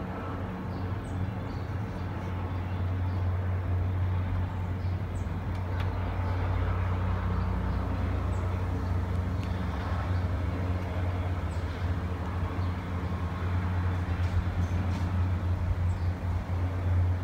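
Distant jet engines of a Boeing 787-9 at takeoff power: a steady low rumble that grows louder as the airliner rolls and lifts off.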